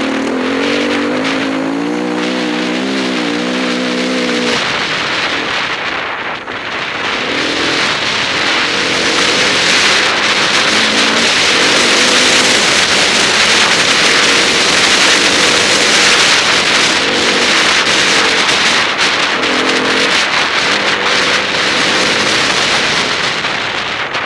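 Enduro motorcycle engine revving up and down as the bike rides a trail. From about five seconds in, a loud rushing noise takes over and the engine comes through only in short spells.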